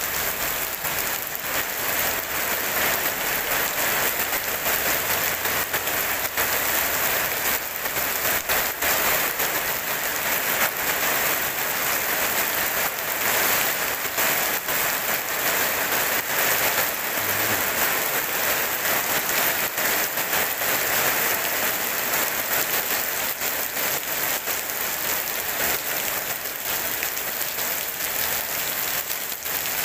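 Rain falling steadily on wet paving and puddles, an even hiss of drops with no thunder.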